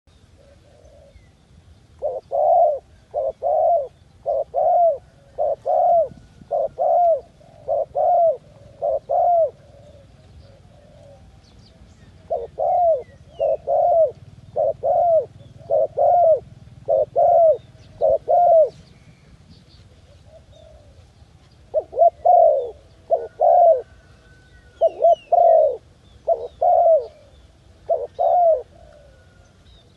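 Dove cooing: a series of short, evenly spaced hoots, about one and a half a second, in three runs of eight to ten notes with short pauses between. Faint chirps of other birds sound in the background.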